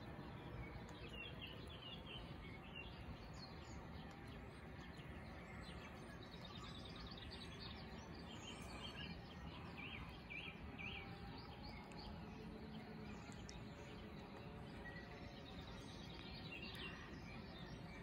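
Faint outdoor background with a steady low rumble, and small birds chirping now and then, most in the first few seconds and again about ten seconds in.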